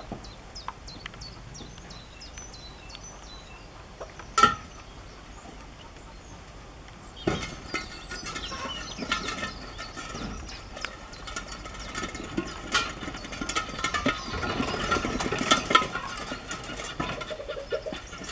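Birds calling outdoors, with a run of small high chirps at first. There is one sharp knock about four seconds in, and from about seven seconds a busier, louder stretch of clicks and calls.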